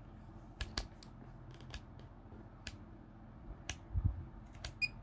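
Sharp plastic clicks of a Fluke 1587 insulation multimeter's rotary function switch being turned through its detents, several separate clicks spread over the seconds, with a dull knock about four seconds in. Near the end the meter gives one very short high beep.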